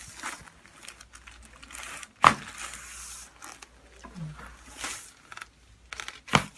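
Rustling and crinkling on a chiropractic table as the patient shifts, with two sharp cracks: a loud one about two seconds in and another near the end. These are chiropractic adjustment thrusts releasing a joint that was locked up.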